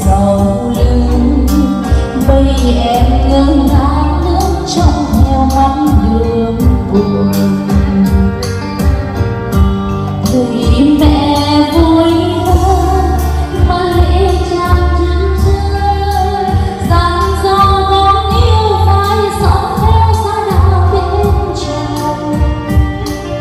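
Music: a song with a woman singing over a steady bass line and drum beat.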